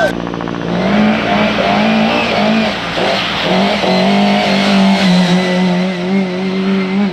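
Competition car engine under hard acceleration: the revs climb and drop several times in the first few seconds as gears are changed, then hold steady at high revs.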